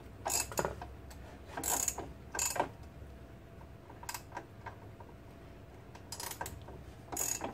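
Ratcheting clicks from a hand tool in about six short, irregularly spaced bursts, as in strokes of a ratchet being worked.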